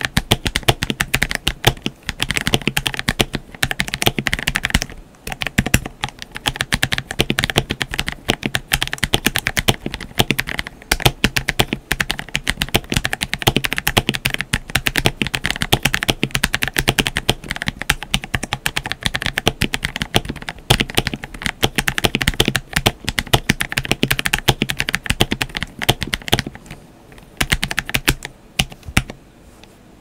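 Typing test on a KBD67 Lite R2 mechanical keyboard with Blueberry Lemon frankenswitches (Outemu Silent Lemon housings, Outemu Blue stems, click jacket and two-stage 62 g springs) under MT3 keycaps. A fast, dense run of non-clicky tactile keystrokes bottoming out, with a short pause about five seconds in and sparser strokes near the end.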